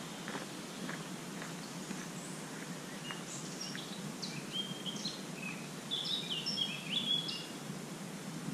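A small bird chirps in quick, short, high notes from a few seconds in until near the end, over a steady low background hiss.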